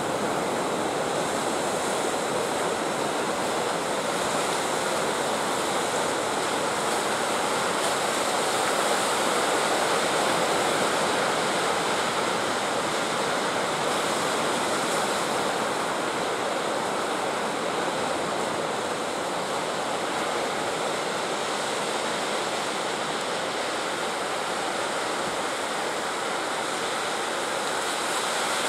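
Steady sea surf breaking and washing on the beach.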